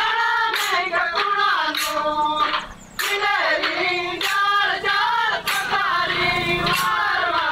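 A group of women singing a folk song together in high voices, with sharp knocks about twice a second.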